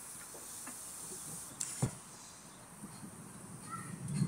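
Miniature steam railway train rolling along its track, heard from a passenger car: a faint high hiss, light clicks, one sharp click about two seconds in, and a low rumble building near the end as the train gathers pace.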